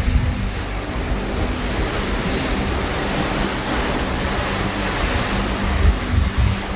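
Ocean waves rushing past a cruise ship with wind, and gusts buffeting the microphone about a second in and near the end. A steady low hum runs underneath.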